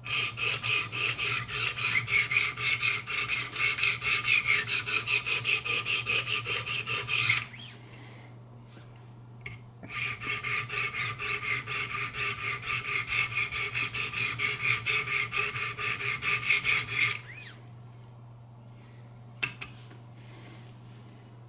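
Wicked Edge guided sharpener's abrasive stones being stroked quickly back and forth along a knife's edge, a rasping scrape about four times a second. Two runs of strokes with a short pause between them, then a single click near the end.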